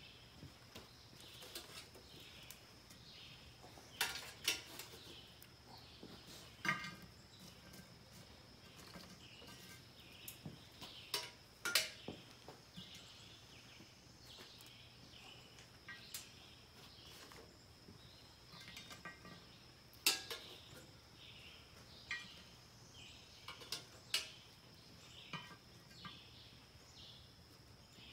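Metal tongs clinking against a charcoal chimney starter and setting lit charcoal briquettes down on a cast-iron Dutch oven lid: about a dozen scattered, sharp metallic clinks and clicks a second or more apart, over a faint background hiss.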